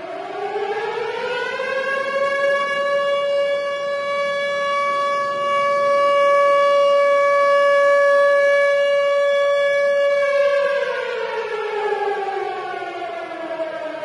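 Tornado warning siren wailing. Its pitch rises over the first two seconds, holds steady for about eight seconds, then slides back down over the last few seconds.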